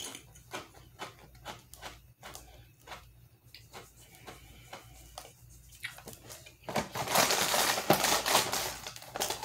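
Crisp cheese crackers being chewed close to the mouth: a run of small, irregular crunches. Then, from about two-thirds of the way in, louder rustling of the cardboard cracker box as it is handled.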